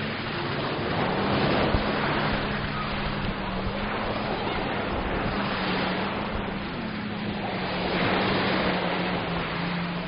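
Sea waves washing onto the beach in slow surges that rise and fall every few seconds, over a steady low hum.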